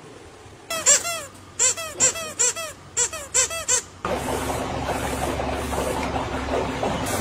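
Squeaky toy parrot squeezed about eight times in quick succession, each squeak rising and falling in pitch. About four seconds in, it gives way to a steady machine hum.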